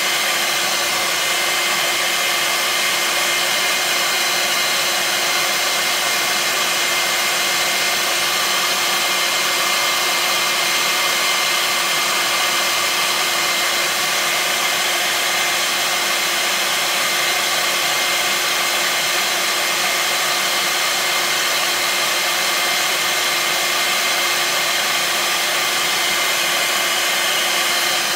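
Hair dryer blowing steadily on high, warming the phone to soften the battery adhesive, then switched off right at the end.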